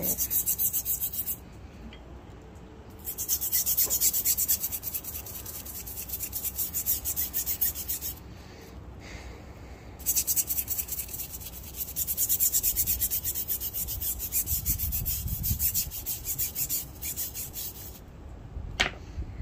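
A small stiff-bristled brush scrubs back and forth along the teeth of a rusty steel file, clearing rust loosened by a vinegar soak. The fast rasping strokes come in three bursts with short pauses between them, and a single sharp click sounds near the end.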